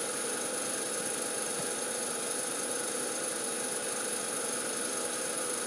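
Steady hum of a running electric motor with a faint high whine above it, holding the same pitch and level throughout.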